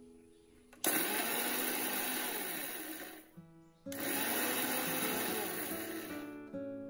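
Electric mixer grinder run in two bursts of about two and a half seconds each, each starting suddenly and tapering off, grinding the dry spices for the pickle masala.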